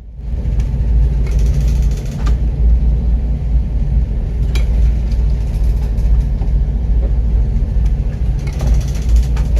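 Loud, steady low rumble aboard a ship caught in a storm at sea, with a few sharp knocks; it cuts off abruptly at the end.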